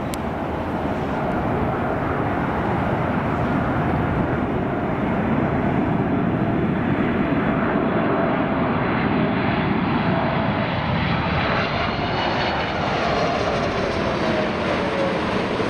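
Boeing 747-8 Freighter's four GEnx-2B67 turbofan engines running at approach power on short final, a steady rush of jet noise that grows as the aircraft nears. Whining engine tones slide down in pitch near the end as it passes.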